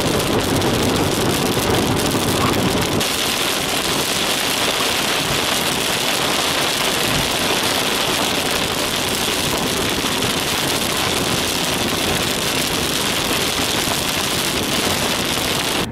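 A car driving on a rain-soaked road, heard from inside the car: a steady, loud hiss of tyres on wet tarmac and rain. The low rumble eases about three seconds in.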